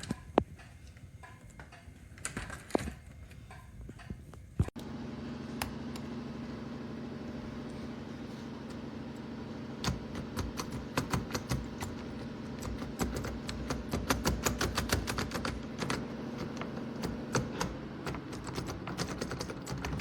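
Metal clicks and rattles of an entrance lever door handle and its lock latch being worked, a few at first, then rapid runs of clicking in the second half, over a steady low hum.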